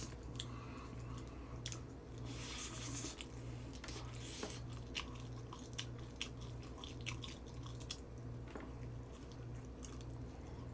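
Chewing and crunching of Goobne Gochu Basasak crispy fried chicken, a run of small sharp crackles as the coating is bitten and chewed.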